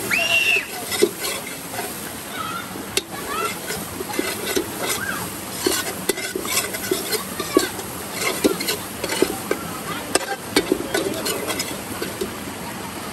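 A metal spoon scrapes and clinks irregularly, several times a second, against a large aluminium pot while stirring onions, hot peppers and curry seasoning frying in it, with a steady sizzle underneath.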